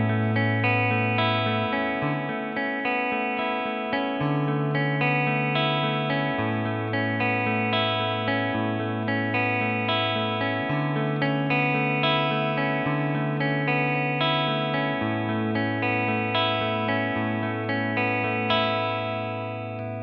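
Electric guitar played through a jack cable with a clean tone: picked, arpeggiated chord notes about two a second over ringing low bass notes, as the wired reference for a wireless-system comparison. A last note is picked near the end and left to fade.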